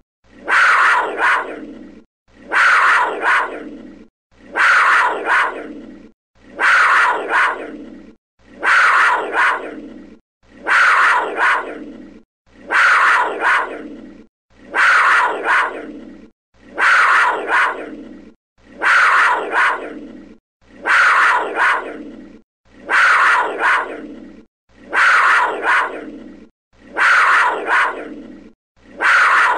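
A panther call, one short loud call about every two seconds, each starting sharply and fading out, the same recording looped over and over.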